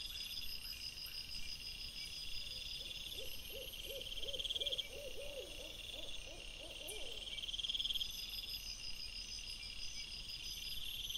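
Crickets chirping steadily in a pulsing night chorus. About two and a half seconds in, an unseen animal gives a run of about a dozen short, low calls, roughly three a second, lasting some four seconds.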